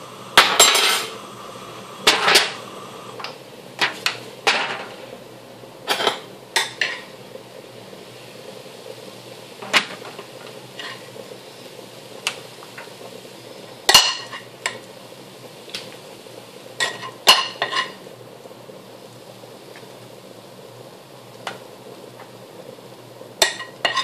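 Metal spoon knocking and scraping against an aluminium pan and a foil takeaway tray as biryani rice is scooped across: sharp clanks, many in the first several seconds, then a few scattered ones.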